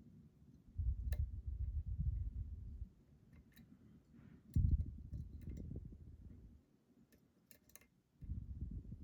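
Picking a lock: scattered small metallic clicks of a hook pick working the pins, over three stretches of low rumbling handling noise from the hands holding the lock and tensioner.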